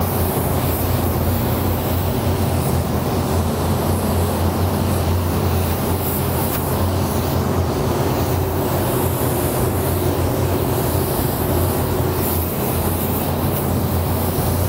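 Paint spray booth's ventilation fan running steadily with a low hum, with the air hiss of an LPH-80 mini spray gun laying a coat of waterborne paint.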